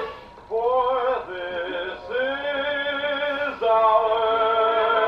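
Music with a voice singing long, steady held notes, changing note about every second, the last one held from a little past halfway on.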